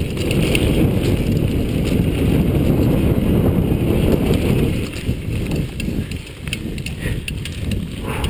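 Chumba VF2 mountain bike climbing a rocky trail: tyres rumbling and crunching over rock and roots with the bike rattling and clicking. It is loudest for the first few seconds, then eases a little.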